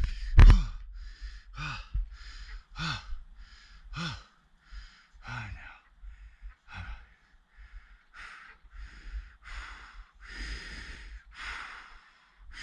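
A person breathing heavily close to the microphone: quick, regular in-and-out breaths about once a second, several exhales carrying a short falling voiced sigh; the breaths grow longer and hissier near the end.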